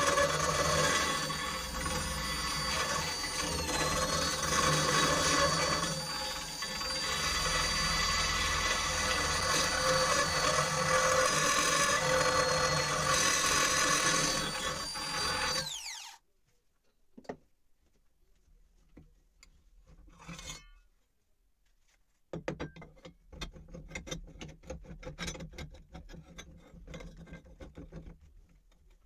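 Handheld power tool with an abrasive attachment running steadily against the steel neck of a rusty shovel, with a steady high whine; about sixteen seconds in it is switched off and winds down. After that come scattered clicks and knocks as the shovel is handled and repositioned in the clamp.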